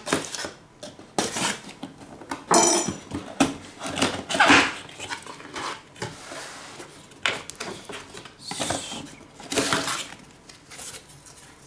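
A knife slitting the seal of a cardboard box, then cardboard flaps scraping and rustling as the box is pulled open, broken by a few sharp knocks and clatters.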